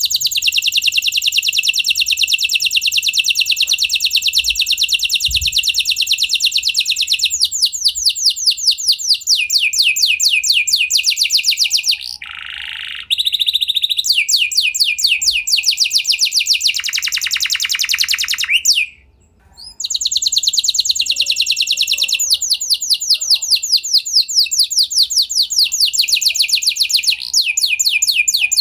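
F1 canary singing a long song of rapid, high trills one after another, with a lower buzzing roll around the middle and a short pause about two-thirds of the way through before the trills resume.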